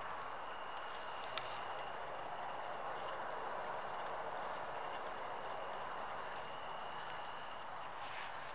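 Steady night insect chorus, a thin unbroken high-pitched trill, over an even hiss.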